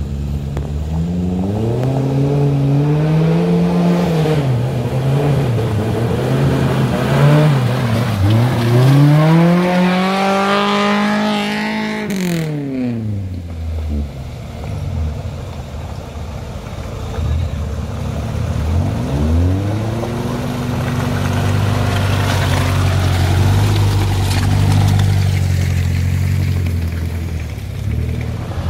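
Off-road 4x4 engines revving under load through deep mud. The engine note rises and falls several times, climbs to its highest pitch about ten seconds in, drops away, then picks up again near twenty seconds and holds steadier.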